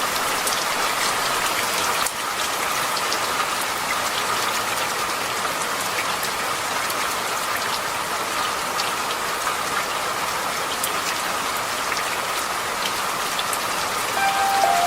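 Steady rain falling, an even patter with scattered small drip ticks. Soft musical tones come back in near the end.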